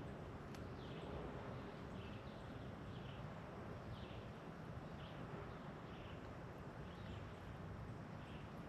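Faint outdoor nature ambience: a steady hiss with a small animal chirping over and over, short high chirps roughly every half second to second.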